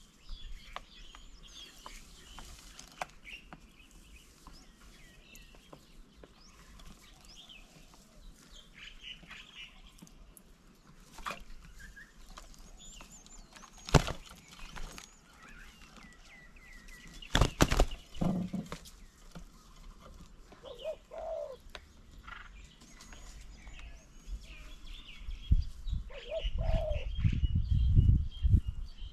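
Small birds chirping and calling here and there, with wings flapping as birds come and go. A sharp knock comes about halfway through, and a louder flurry a little later. A dove coos low a few times in the second half.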